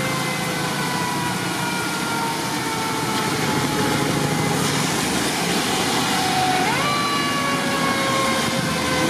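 A Federal Q mechanical siren on an approaching fire engine winds down, its wail falling slowly in pitch. About two-thirds of the way through it is wound back up with a quick rise and then starts falling again. Under it, tyres hiss steadily on the wet road from passing traffic.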